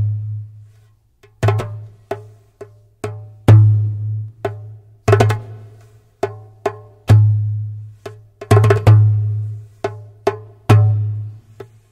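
Percussion music: sharp struck hits at an uneven pace, some in quick pairs, each leaving a low ringing tone that dies away.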